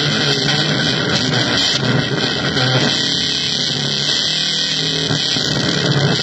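Harsh electronic noise music from keyboard and drum machine: a loud, dense, steady wall of hissing distortion, with low droning tones that come and go underneath.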